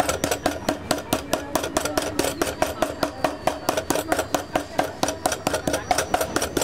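Metal meat mallet pounding a veal escalope flat under cling film on a wooden chopping board, flattening it for schnitzel: rapid, even strikes, about four or five a second.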